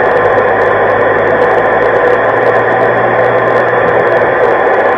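Loud, steady hiss of static from a CB radio's speaker, in the narrow band of radio audio. It is a weak incoming FM transmission that comes through mostly as noise.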